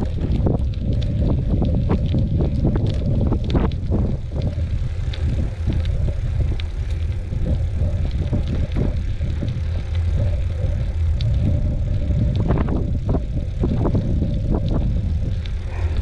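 Wind buffeting the microphone as a mountain bike rides a dirt trail, a steady low rumble, with scattered clicks and rattles from the bike and tyres over rough ground.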